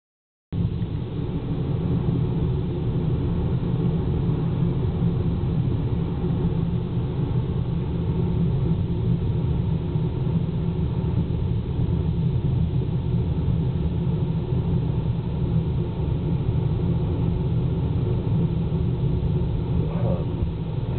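Steady low rumble of a car driving at an even speed, engine and tyres on pavement heard from inside the cabin. It starts abruptly about half a second in and holds level without change.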